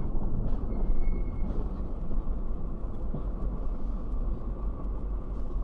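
Steady rumble of a car driving, with road and engine noise.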